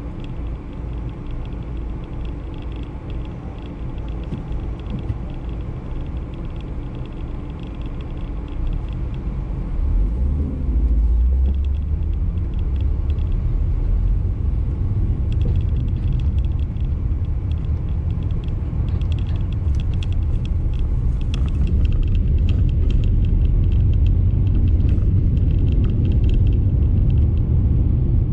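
Car engine and road noise heard from inside the cabin: a steady low rumble while the car waits in traffic, growing louder about ten seconds in as it pulls away and drives on.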